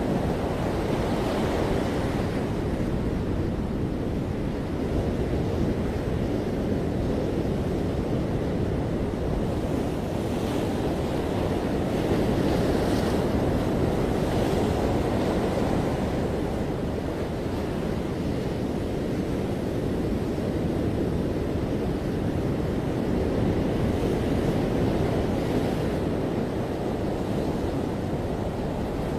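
Ocean surf breaking and washing on a beach, a continuous rumbling wash that swells gently and ebbs, with some wind buffeting the microphone.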